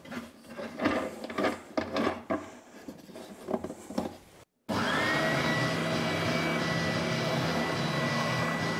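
Scattered clicks and knocks as the sander's tilting table and its locking knob are handled. About halfway through, the Scheppach OSM600 oscillating spindle sander's motor starts with a quick rising whine, then runs steadily and louder.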